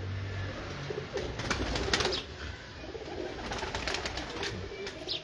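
Domestic pigeons cooing in a wire-mesh loft, with scattered short rustles and clicks.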